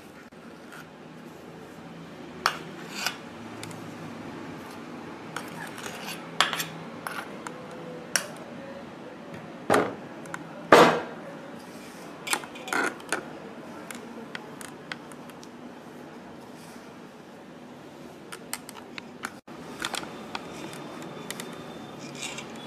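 Metal spoon clinking and scraping against a glass dish and a stainless steel bowl as powdered sugar is spooned into the bowl. The clinks are scattered and irregular, loudest about halfway through, and become fewer and fainter later on.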